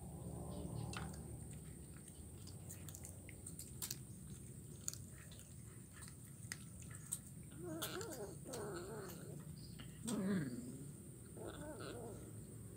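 Kitten chewing and crunching fish bones: a scatter of small, sharp crunches and clicks. A few brief pitched vocal sounds come about eight, ten and eleven and a half seconds in.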